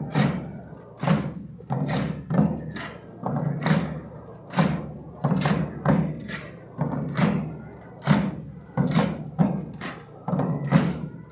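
Marching drum of a Roman-soldier (Armats) troop beating a slow march rhythm of sharp strokes, roughly two a second.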